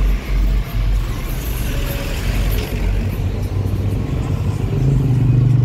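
Road traffic passing close by: a heavy vehicle's deep engine rumble that eases off after about three seconds, then a steady engine drone that grows louder near the end.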